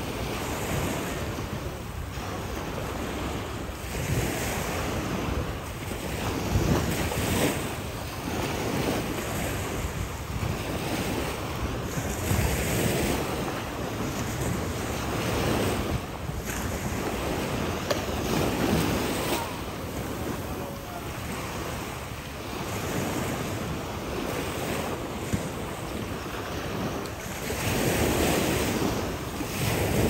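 Sea surf washing onto the beach, the rush of water swelling and falling every few seconds, with wind blowing on the microphone.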